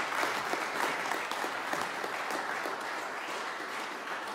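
Members of Parliament applauding in the debating chamber: many hands clapping densely and steadily, easing off slightly near the end.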